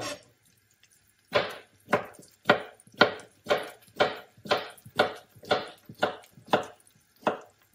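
Chef's knife dicing a miniature seedless cucumber on a plastic cutting board: a steady run of about a dozen chops, about two a second, starting about a second and a half in.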